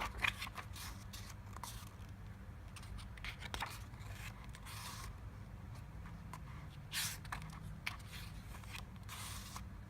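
Pages of a photobook being turned and handled: a few short papery swishes, a second or more apart, with a faint steady hum underneath.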